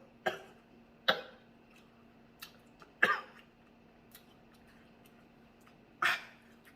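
A person coughing in short single bursts, four times over several seconds, with faint clicks and crackles from handling the crab shells in between. The food is a 2x spicy seafood boil.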